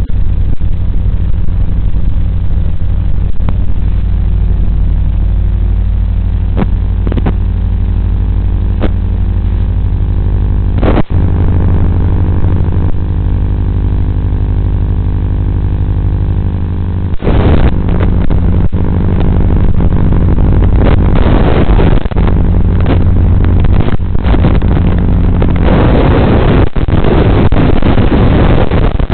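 Buzz and hiss from an analog FPV video link, recorded through the goggles' receiver: a steady hum with several even tones under it, broken by short bursts of static that thicken near the end as the video signal breaks up.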